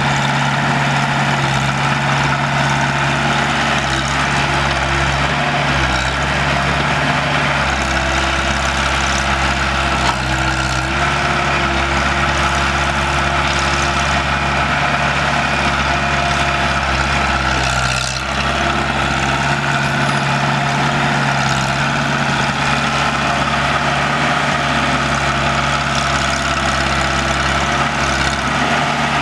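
Diesel engine of a small crawler excavator running steadily while it digs and loads sand. Its pitch shifts a few times as the hydraulics take load.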